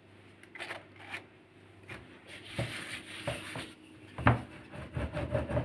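Wooden rolling pin rolled back and forth over a dough sheet on an aluminium pelmeni mould: a rubbing sound, then a run of dull knocks in the second half as the pin presses the dough onto the mould's edges to cut the dumplings.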